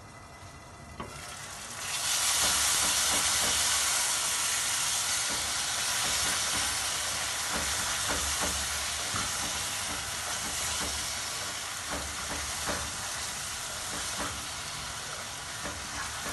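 Tomato and spice sauce sizzling in a frying pan, muffled under a glass lid at first and loud once the lid is off about two seconds in. A wooden spoon stirs it, with small scraping clicks against the pan.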